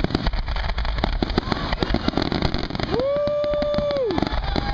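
Consumer fireworks going off in rapid succession: a dense run of sharp pops and crackles. About three seconds in, a loud whistle sweeps up, holds one pitch for about a second, then drops away.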